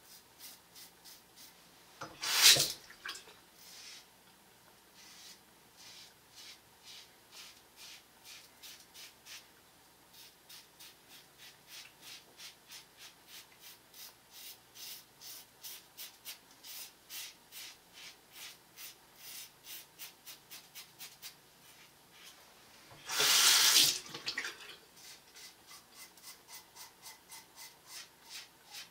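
Double-edge safety razor scraping through a five-day beard lathered with shave soap, in short regular strokes at about two or three a second. Twice a bathroom tap gushes briefly, the second time for about a second; these are the loudest sounds.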